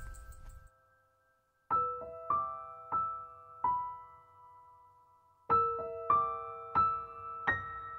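Background music: a slow solo piano melody of single notes, each struck and left to fade, after a brief pause about a second in.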